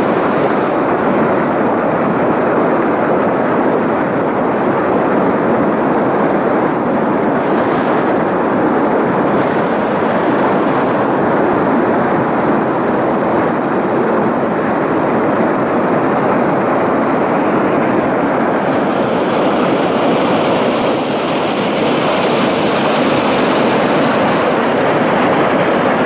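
Water rushing steadily down the stepped cascades and small weir drops of a stream, a continuous white-water noise with no break.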